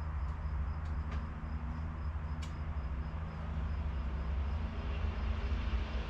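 Steady low mechanical hum, with a few light, sharp clicks of hand tools in the first couple of seconds.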